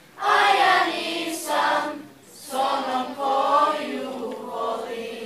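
Children's choir singing, in two phrases with a short break about two seconds in.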